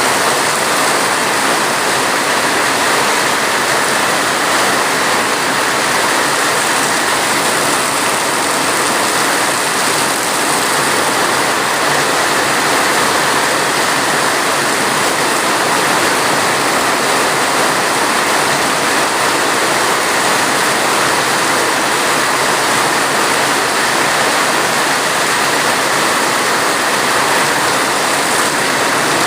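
Steady heavy rain: a loud, even hiss with no breaks or changes.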